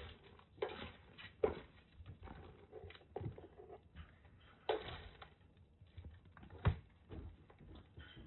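Kittens scampering and playing right at a floor-level camera, with rustling and about five irregular sharp knocks as they bump and brush against it.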